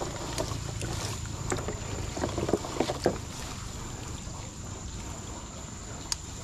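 A hand sloshing and splashing in a shallow muddy pool and rustling through wet grass as it gropes about, with a cluster of sharper splashes about two to three seconds in.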